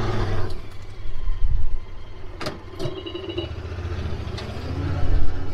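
Side-by-side utility vehicle's engine running on a rough trail. It eases off about half a second in and picks up again later on, with two sharp knocks about two and a half seconds in.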